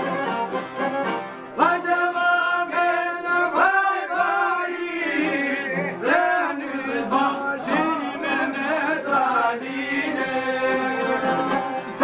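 Men singing an Albanian folk song in a wavering, ornamented melody over plucked long-necked lutes and an accordion. The voices come in about a second and a half in and drop out around ten seconds, leaving the instruments playing on.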